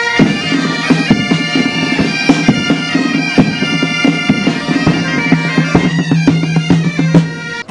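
A band of Spanish gaita bagpipes playing a tune over a steady drone, with a snare drum and a square frame drum beating time.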